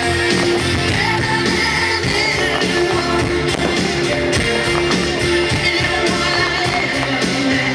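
Pop-rock music with singing, loud and steady, with held notes.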